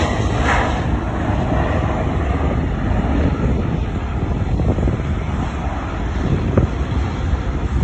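Jet noise from a Boeing 717's two rear-mounted Rolls-Royce BR715 turbofans at takeoff power, a steady rush as the airliner rolls, lifts off and climbs away. Wind buffets the microphone throughout.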